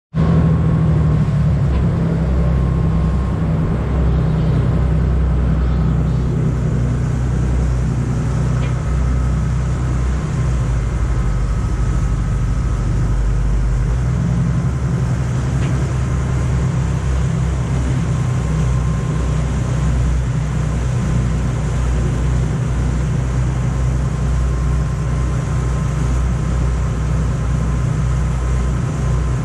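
Sport-fishing boat's engine running steadily at trolling speed: a low, even drone with a steady rushing hiss over it.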